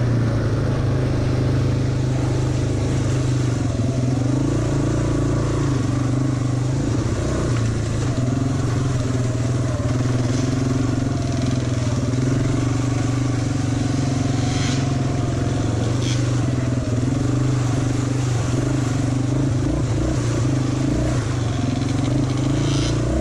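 ATV engine running at low trail speed, its pitch rising and falling a little with the throttle.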